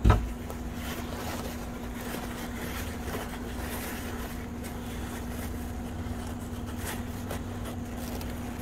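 Paper towel rustling and rubbing as a small rubber transmission plug is wiped clean of dirt, over a steady low hum. A single thump right at the start.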